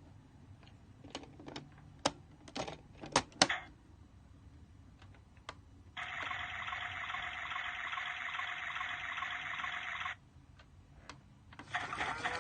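Several sharp plastic clicks and knocks, then a toy washing machine's electronic water sound effect hissing steadily for about four seconds and cutting off sharply. Near the end another toy sound starts, with a rising tone.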